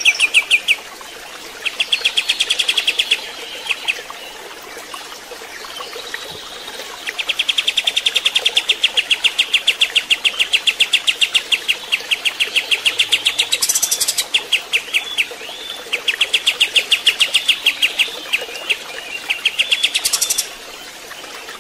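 Kapas tembak songbird singing in phrases of rapid repeated notes, each run lasting one to several seconds with short pauses between, over a steady sound of running water. The song stops suddenly near the end, leaving only the water.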